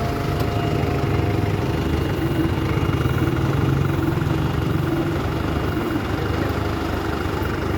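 A vehicle engine idling steadily with a low, even rumble, which cuts off abruptly at the end.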